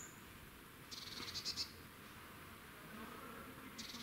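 A small bird's high, rapid trill, heard twice: once about a second in and again near the end, each lasting under a second.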